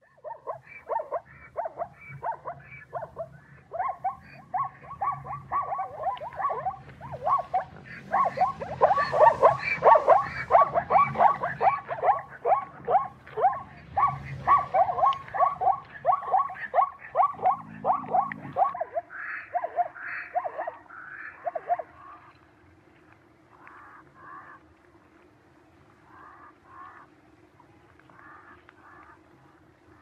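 Zebra calling: a long run of short barking yelps, about four a second, loudest in the middle. They stop a little past halfway, and softer, spaced calls follow over a steady low hum.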